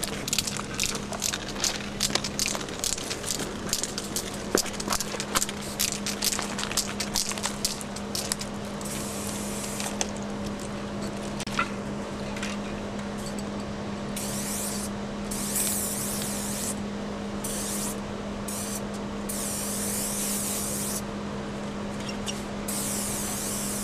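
Aerosol spray-paint can hissing in repeated short bursts, starting about nine seconds in, as a graffiti piece is painted on a wall. Before that comes a stretch of rapid clicks and rattles, and a steady low hum runs underneath throughout.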